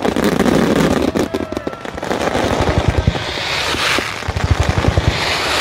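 Fireworks barrage heard close to the launch site: a rapid, dense string of loud bangs from the launches and bursting shells, with the hiss and crackle of bursting stars swelling around the middle and again near the end.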